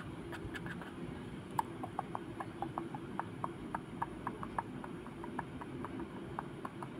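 Quick, uneven series of light ticks, about three or four a second, over a steady low hum.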